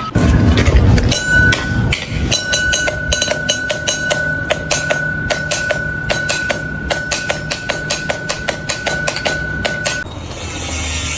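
A heavy thud, then a fast run of ringing metallic knocks, several a second, over a steady high tone that cuts off about ten seconds in, followed by a short burst of hiss.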